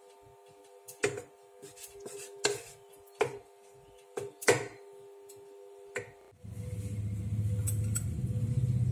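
Wooden spatula stirring chicken curry in a pan, knocking and scraping against the pan several times over a steady hum. About six seconds in the hum cuts off and low background music starts.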